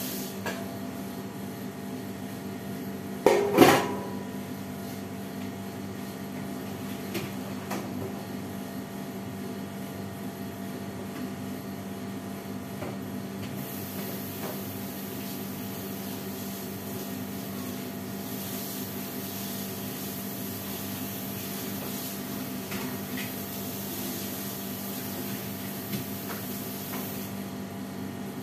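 Dishwashing at a kitchen sink: stainless steel pots and bowls knocking and scraping, with one loud ringing metal clatter about three seconds in and a few light clinks later. A steady hum runs underneath.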